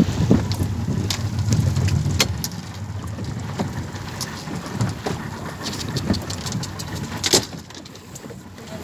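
Scattered knocks and taps as a freshly caught wahoo is unhooked and handled on a fibreglass boat deck, with one sharper knock near the end. A low rumble of wind and boat motor fades after the first couple of seconds.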